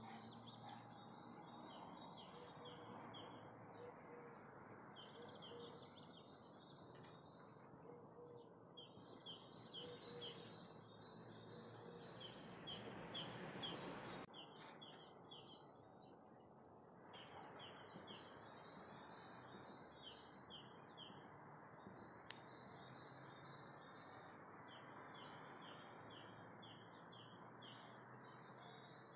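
Faint songbird singing: short phrases of quick, high chirping notes, repeated every few seconds over a soft steady hiss. About halfway through, a brief rush of noise swells and then cuts off suddenly.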